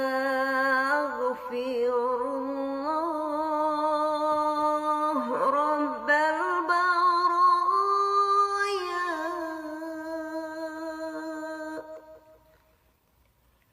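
A single voice chanting the Arabic istighfar dhikr in a long, drawn-out melismatic phrase, holding wavering notes that slide slowly up and down. It fades out about twelve seconds in.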